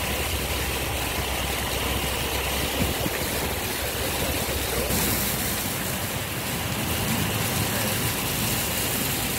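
Steady rushing water noise as a car moves through a flooded road, with the low hum of its engine underneath. About halfway through the hum eases and the hiss of the water grows brighter.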